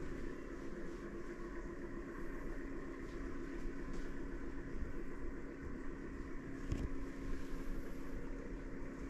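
Steady mechanical hum with a few constant tones over a low rumble, and a single sharp click about seven seconds in.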